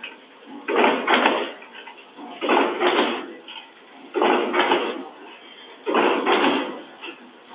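Automatic packaging machine running through its cycle: a noisy mechanical stroke, each one in two parts, repeating evenly about every 1.75 seconds, four times.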